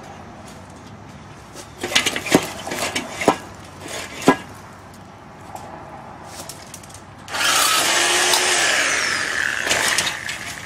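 A handful of sharp metallic clicks and snaps as wire is worked on a steel fence. About seven seconds in, a loud, steady rushing noise starts and lasts a couple of seconds.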